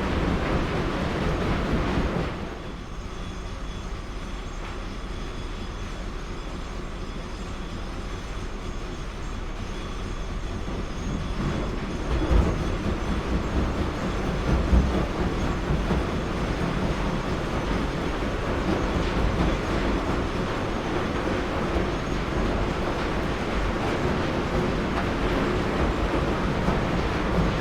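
Machinery ambience: steady heavy mechanical running noise with a low rumble. It drops in level about two seconds in, then builds back up from the middle, with a couple of low thumps.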